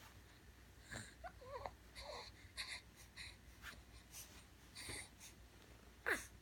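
A string of quick snorts and sniffs with a few small squeaky vocal sounds, then one sharp, louder sneeze near the end.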